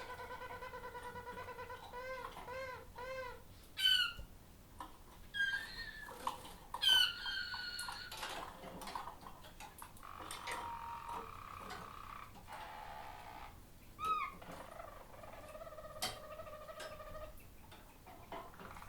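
Harzer Roller canary singing: a steady low rolling tour for the first two seconds, then a run of arching notes, sharp downward glides about 4 and 7 seconds in, and a string of varied held and trilled phrases.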